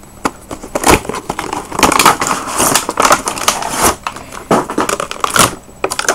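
Cardboard toy box with a clear plastic window being opened by hand: an irregular run of crinkling plastic, tearing and rustling with many sharp clicks and cracks.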